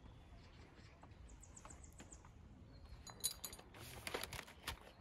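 Camping gear being tidied away: faint clinks and rattles of items handled on a folding table and crates, loudest in the second half. A brief run of high chirps comes about a second in.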